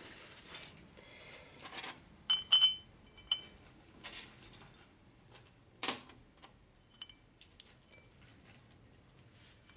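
Scattered metallic clicks and clinks of steel bolts and a cast engine cover being handled on a metal workbench, with a cluster of bright ringing clinks about two and a half seconds in and a sharper knock about six seconds in.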